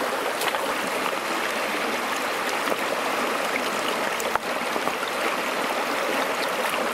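Shallow rocky stream rushing over stones, a steady hiss of flowing water, with a few faint knocks of stones being set in place.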